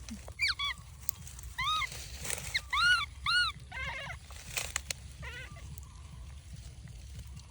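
Baby monkey crying: a string of short, high-pitched calls, each rising then falling in pitch, that turn quieter and wavering after about five seconds.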